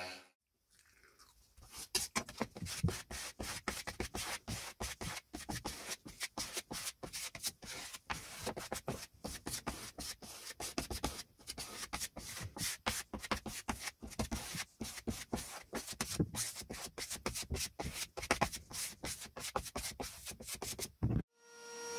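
Hand work on a workpiece: rapid, irregular scraping and rubbing strokes with small clicks and knocks, like hand sanding or scraping, after a power tool falls silent at the start.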